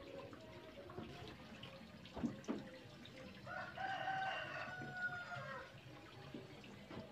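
A rooster crows once, a single long call starting about three and a half seconds in, over liquid dripping and splashing. Two sharp knocks come a little before the crow.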